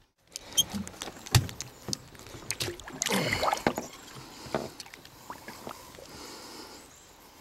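A striped bass splashing at the water's surface as it is released: a run of sharp splashes and slaps, busiest about three seconds in, then settling to a quieter wash of water.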